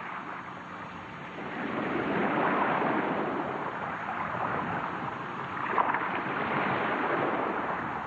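Sea waves washing in, a steady rushing that swells about two seconds in and rises and eases after that.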